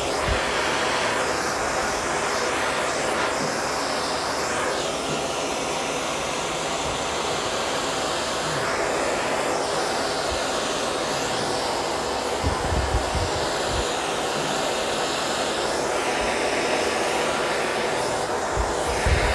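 Handheld gas torch flame hissing steadily as it heats lead body solder on a steel car panel, with a few faint knocks.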